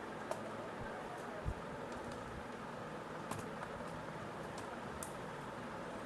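Scattered faint clicks and taps of a laptop's plastic case and tools being handled as it is taken apart, with one soft low knock about a second and a half in, over a steady background hiss.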